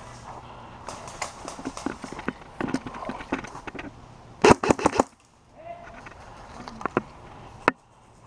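An HPA-powered airsoft rifle, a Classic Army G36 with a Wolverine Inferno engine, fires a quick burst of about five shots about halfway through, with a few single sharp cracks later on. Before the burst there is scattered crackling, like movement through brush.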